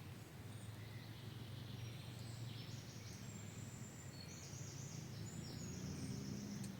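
Forest ambience: from about two seconds in, a bird sings a high song that jumps in steps between notes, over a steady low rumble.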